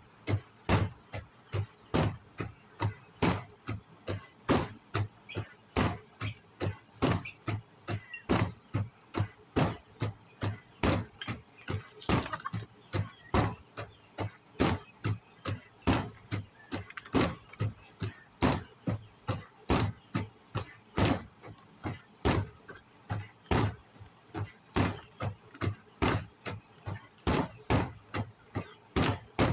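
Gloved punches landing on a freestanding reflex punching bag in a steady rhythm, about two hits a second.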